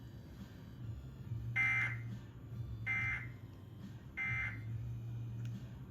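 Three short buzzy data bursts about 1.3 seconds apart: the Emergency Alert System's end-of-message code tones, sounding after the tsunami warning's spoken message has finished. A steady low hum runs underneath.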